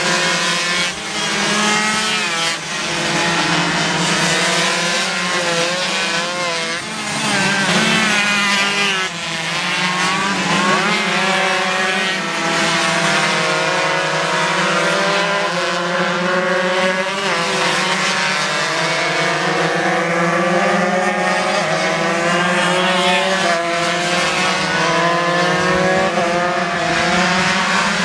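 Several 125cc underbone racing motorcycles at full throttle, overlapping engine notes rising and falling in pitch as they accelerate, shift and pass through corners.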